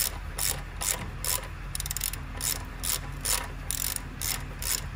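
Half-inch-drive ratchet with a 17 mm socket and extension clicking in quick back-and-forth strokes, about two a second, as it loosens engine-mount nuts.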